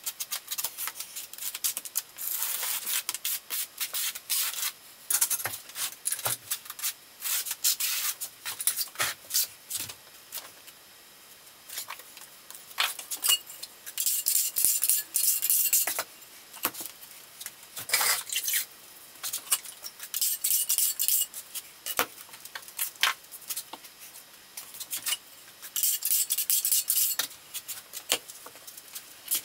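Steel notched trowel scraping and combing thinset mortar, in many short, quick scraping strokes that come in clusters.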